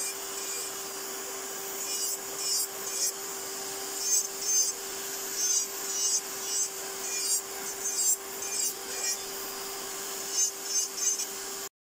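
Electric nail drill (e-file) with a ceramic bit whining steadily and rasping against gel-polished fingernails in short, repeated strokes as the nails are filed down. The steady hiss of a manicure dust extractor fan runs beneath it. The sound cuts off abruptly near the end.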